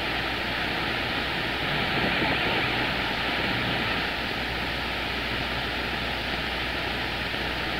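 Steady static hiss from a CB radio receiver on the 27 MHz band between transmissions, with no station coming through. The hiss is even and held at a constant level.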